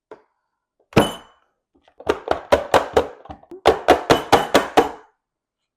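Hand-pushed food chopper working through salad ingredients: a single knock about a second in, then two quick runs of chopping strokes, about five a second.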